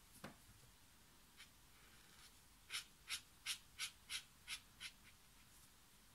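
Ecoline brush pen tip scratching across rough cotton watercolour paper in seven quick short strokes, about three a second, starting near the middle. A soft tap comes just after the start.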